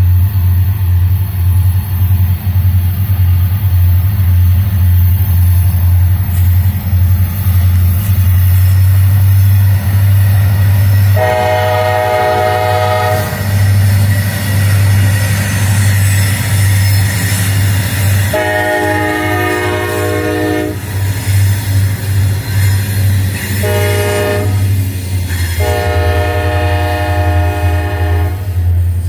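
Diesel locomotive horn sounding the grade-crossing signal: two long blasts, a short one and a final long one, over the train's steady low rumble.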